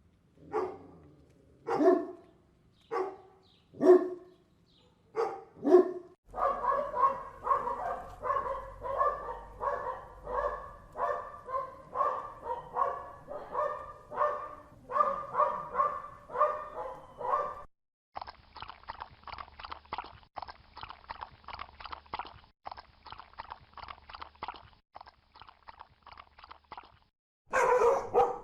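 Dogs barking in a string of spliced recordings. First come single barks about once a second, then a long run of rapid, continuous barking. About 18 seconds in, a different recording takes over with another fast run of barks, and a louder burst of barks starts near the end.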